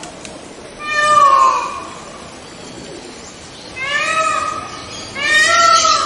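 White peacock (leucistic Indian peafowl) calling: three loud cries, about a second in, about four seconds in, and a third starting near the end. Each cry is short and falls in pitch at its close.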